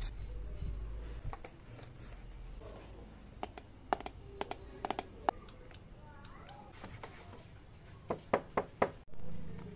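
Sharp clicks and taps of a hand and cloth against a motorcycle's plastic body panels and instrument cluster while it is wiped down. They come in irregular groups, a cluster in the middle and a quick run of four near the end.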